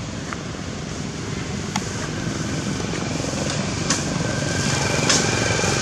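Steady heavy rain hiss, slowly growing louder, with a few sharp taps like drips landing. A thin steady high tone joins about halfway through.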